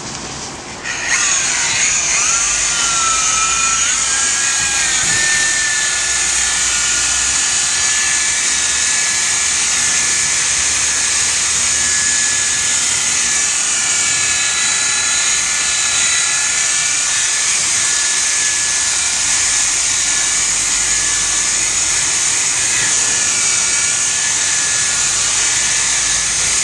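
Electric polisher with a foam pad starting about a second in, its whine rising to speed, then running steadily as it polishes a headlight lens.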